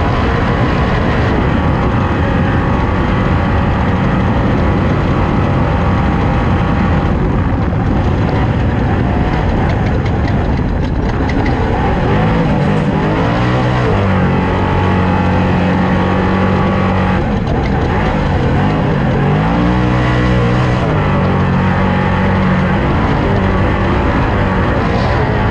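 Race car engine running hard at speed. Twice it drops in pitch as the throttle is lifted for a corner, then climbs back and holds steady on the straight.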